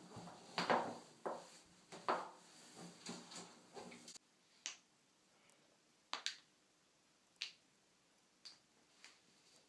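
A series of sharp joint cracks and pops, several close together in the first few seconds. After an abrupt change to a quieter background about four seconds in, single cracks follow roughly a second apart.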